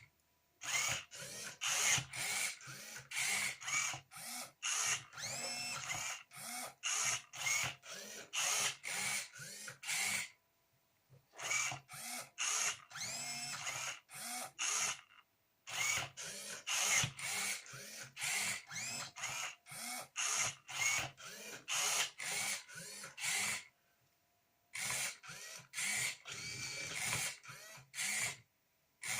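Motors of a home-built Rubik's cube solving robot turning the cube faces move after move. They make a rapid series of short whirs, each rising and then falling in pitch, with brief pauses about a third, half and four-fifths of the way through.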